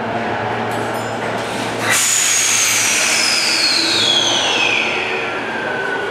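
Tokyo Metro 05 series subway train starting off from the platform: over the steady hum of the standing train, a sudden hiss of air about two seconds in, then the electric whine of the traction motors, one tone gliding steadily downward as the train begins to move.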